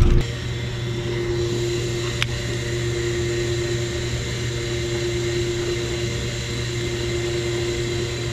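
A steady machine hum with several held tones and even loudness, broken by a single short click about two seconds in.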